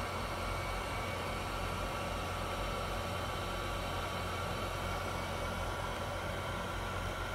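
Steady whirring hum of a chip rework machine's hot-air blower and fans running, with a faint steady whine over it.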